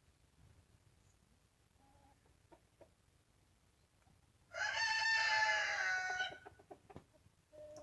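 A rooster crowing once, a single call of nearly two seconds starting about four and a half seconds in, with a few short, faint chicken clucks before and after it.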